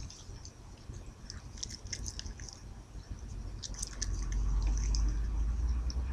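Chihuahua grooming itself, nibbling and licking at its fur in a run of small wet clicks. From about four seconds in a low rumble rises underneath and becomes the loudest sound.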